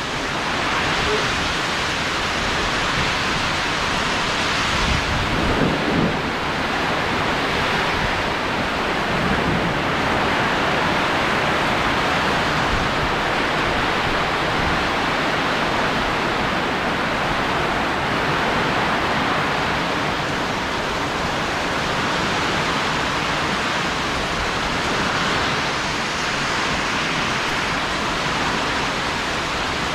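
Heavy rain pouring steadily during a rainstorm.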